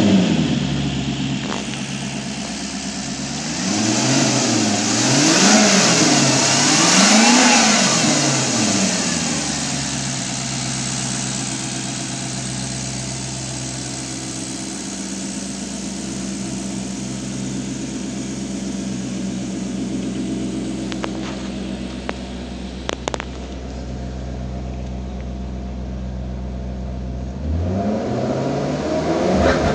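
2013 Maserati GranCabrio's 4.7-litre V8 running just after starting, in an engine test that it passed. It is blipped up and down three times in the first several seconds, then idles steadily, with a few short clicks about three-quarters of the way in, and revs up and down again near the end.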